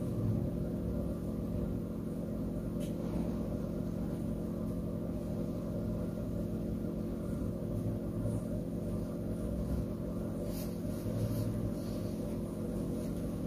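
A steady low hum of several fixed tones, with a few faint clicks about ten seconds in.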